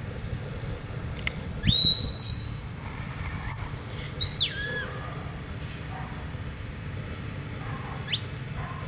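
Handler's whistle commands to a working stock dog: a whistle that rises sharply and is held for about three-quarters of a second, a falling whistle a couple of seconds later, and a short upward chirp near the end.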